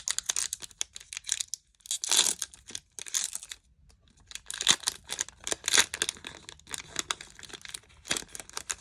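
Foil Pokémon TCG booster pack wrapper being torn open and crinkled by hand, in repeated crackly bursts with a brief pause about four seconds in.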